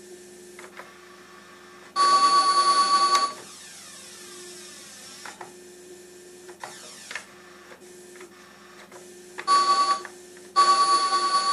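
Korg G3 guitar multi-effects pedal output through an amplifier as its buttons are pressed: a loud steady buzzing tone cuts in for about a second, again briefly near the end, then comes back and stays. In between, a faint sweeping whoosh over a steady hum, with a few short clicks of the switches.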